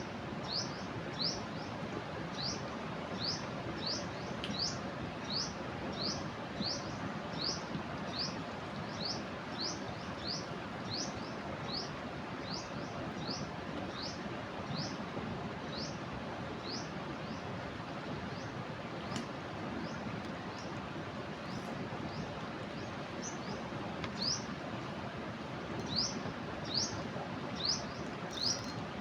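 A bird repeats a short, rising high chirp about one and a half times a second, with fewer chirps through the middle, over the steady rush of a river in flood.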